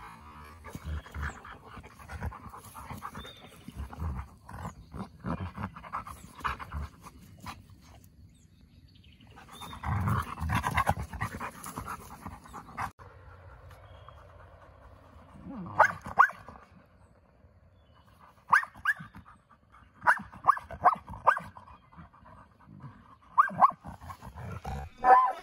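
A husky and wolf dog pups play-wrestling, panting and scuffling, with a louder stretch about ten seconds in. Through the second half comes a string of short, sharp barks.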